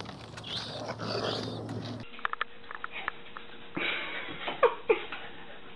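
Raccoons feeding at food dishes, then a puppy whimpering at a raccoon, with two short falling whines a little before the end.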